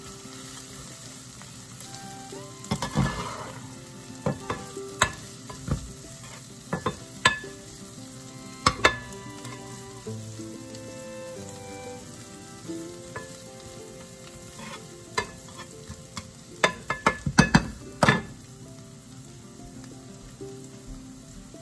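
Onions, garlic and bacon bits sizzling in a nonstick frying pan as a spatula stirs them, with sharp clacks of the spatula against the pan. The clacks come in a quick flurry late on.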